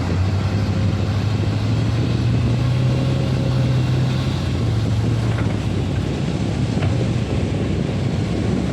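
Komatsu PC200 excavator's diesel engine running steadily, its pitch rising a little partway through and easing back.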